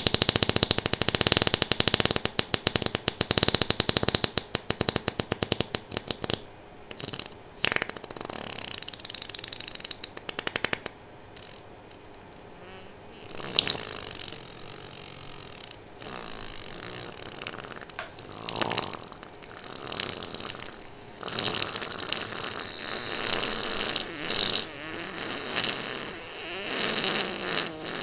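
A very long fart. It opens loud as a rapid fluttering rattle for about six seconds, then goes on as quieter, broken sputters and a lower wavering stretch that swells up several times.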